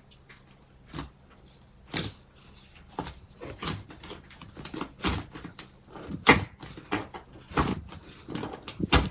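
Slime being handled, giving a run of irregular clicks and pops, with a few louder ones standing out.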